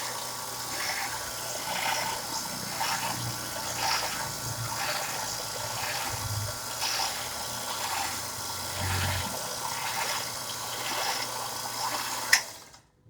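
Metal stock for an airgun chamber being cut: a steady rasping with a rhythm of about two strokes a second, ending suddenly with a click near the end.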